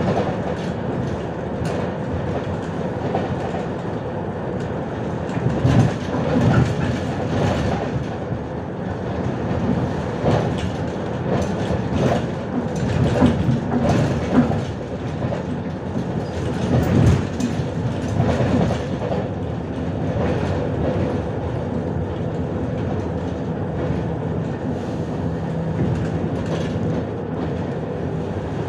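Inside a MAZ-105 city bus under way: steady engine and road noise with a constant whine. Bursts of knocking and rattling from the body and fittings come over bumps through the middle stretch, then the run settles back to the steady noise.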